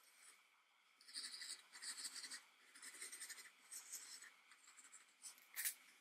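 Faint, quick scratching strokes of a handheld scalp massager brush worked through damp hair, coming in short runs of several strokes each, about a second apart.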